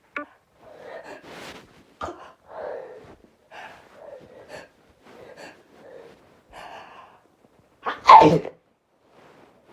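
A person's short, catching breaths building up for several seconds, then one loud sneeze about eight seconds in.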